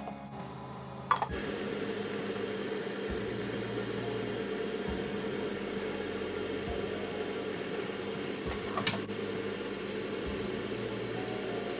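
A stainless pot of water and rice at a rolling boil on a gas stove, giving a steady bubbling hiss. A short knock about nine seconds in, as the rice is stirred.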